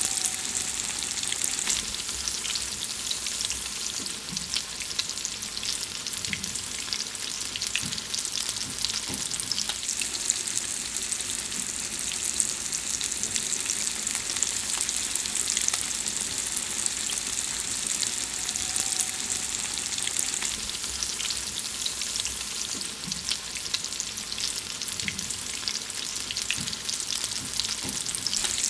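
Food frying: a steady sizzle with many small crackles and pops throughout.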